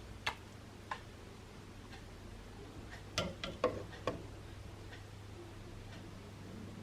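A few light clicks and taps of kitchen utensils being handled: one at the start, another a second in, then a quick run of four or five about three to four seconds in, over a faint steady low hum.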